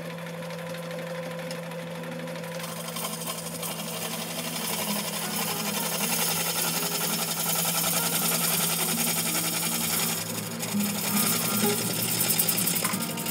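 JET JWL-1442 wood lathe motor humming steadily while a bowl gouge rough-turns a macrocarpa (Monterey cypress) bowl blank: a hiss of cutting builds a few seconds in, with a fast rhythmic chatter as the gouge bites the out-of-round blank on each turn, easing for a moment shortly before the end.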